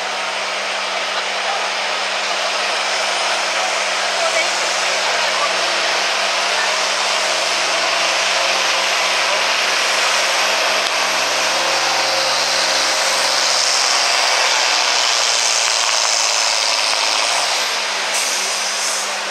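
Farm stock diesel tractor's engine running at full throttle under heavy load as it pulls a weight-transfer sled down the track, a steady loud drone throughout. It eases off slightly near the end.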